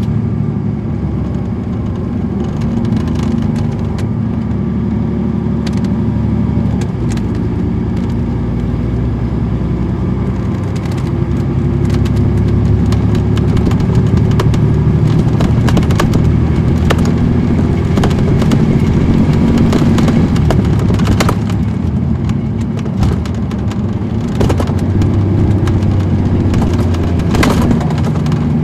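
Caterpillar C13 ACERT diesel engine of a 2006 MCI D4500CL coach running, heard from inside the bus: a steady low engine drone whose pitch shifts a little now and then, with sharp clicks and rattles scattered through it.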